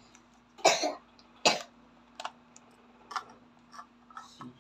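A person coughing twice, short and sharp, then a few lighter clicks of plastic being handled.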